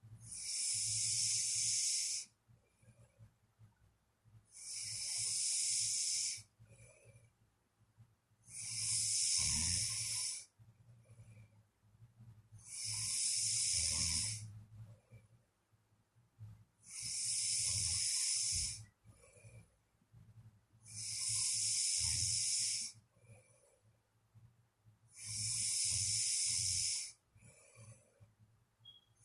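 A sleeping person snoring: seven loud, hissing breaths, each about two seconds long, coming regularly about every four seconds.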